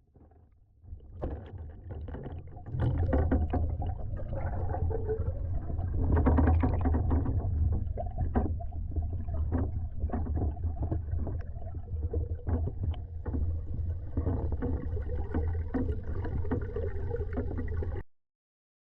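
Waterfall roaring: a heavy, steady rush of falling water with a deep rumble and splashy crackle, swelling up about a second in and cutting off suddenly near the end.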